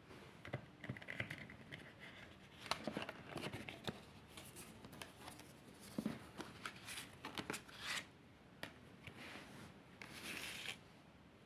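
Packaging being handled by hand: a run of small taps, clicks and rubbing scrapes, with a longer scrape near the end.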